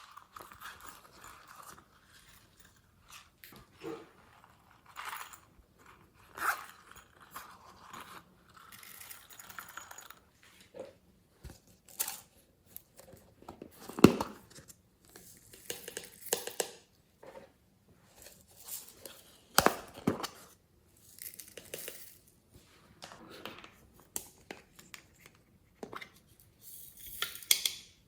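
Glossy slime being worked by hand: irregular sticky clicks, snaps and crackles as it is stretched and pressed, the loudest snap about halfway through.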